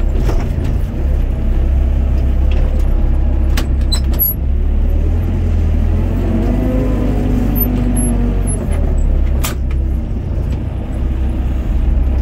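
Doosan DX55 mini excavator's diesel engine running steadily under load as the boom and bucket work, heard close up from the cab. A higher whine comes in for a couple of seconds about midway, and there are a few sharp clicks.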